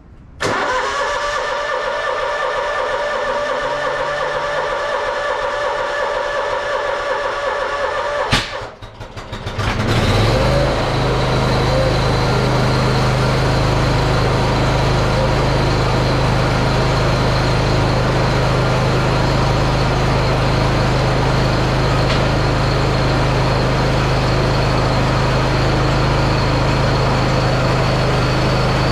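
A steady, even whine for about eight seconds that ends in a sharp click. About ten seconds in, a zero-turn mower's engine starts and settles into a steady run.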